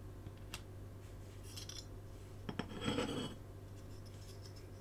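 Clear plastic window piece being worked out of a small diecast metal toy van body: a few light clicks, then a brief scraping rub about three seconds in, over a faint steady hum.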